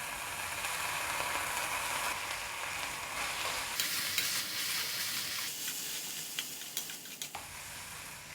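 Chopped vegetables frying in butter in a pan, sizzling steadily while being stirred, with a few short clicks of the spatula against the pan.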